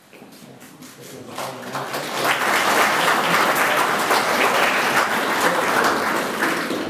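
Audience applauding: scattered clapping that swells into full applause about two seconds in, then eases slightly near the end.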